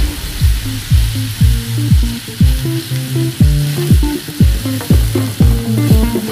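Background music with a steady kick-drum beat, about two beats a second, and a stepping bass line. Under it, a pan of tuna, onion and curry leaves sizzles in oil as it is stirred.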